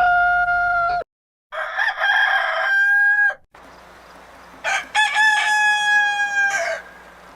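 Rooster crowing: the end of one crow, then two more full crows about two seconds apart, each finishing on a long held note that drops away. The crows come from separate recordings spliced together, with abrupt cuts and a changing background hum between them.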